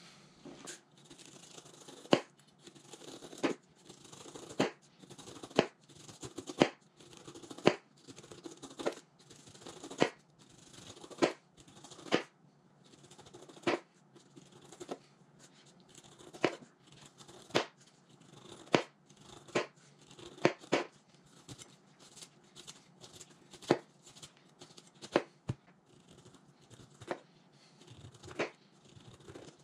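Knife slicing the rind off a whole pineapple in downward strokes: each stroke a short rasping cut through the tough skin, ending in a sharp tap of the blade on the cutting board, about one a second.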